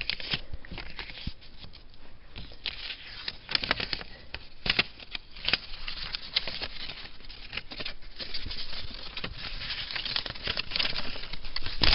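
Paper and envelope being handled and opened by hand: irregular rustling, crinkling and tearing with sharp clicks scattered throughout.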